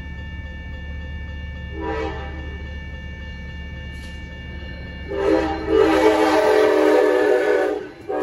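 Amtrak San Joaquins train's horn sounding for the grade crossing: a short blast about two seconds in, then a long blast from about five seconds to near the end, with a brief toot as the train reaches the crossing. Under it, the crossing bell rings steadily and a low rumble of the approaching train fades out.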